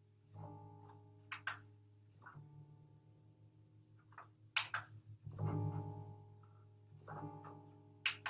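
Solo improvised music on a plucked string instrument, likely guitar: low notes and chords struck every second or two and left to ring, with a few short sharp clicks between them.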